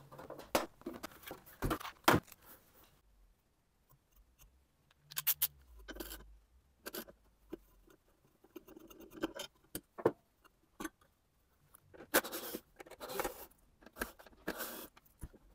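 Tools and plastic and metal parts being handled while an air purifier is taken apart: scattered clicks, knocks and scrapes. A little after the middle comes a quick run of small clicks from a socket ratchet undoing the nut on the fan motor's shaft.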